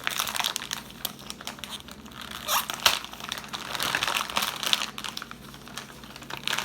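Mail packaging crinkling and rustling as it is handled and pulled open by hand, in a stream of irregular crackles.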